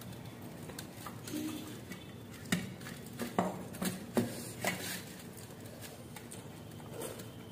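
Fingers mixing rice on stainless steel plates, with several sharp clicks of fingers and food against the metal between about two and a half and five seconds in.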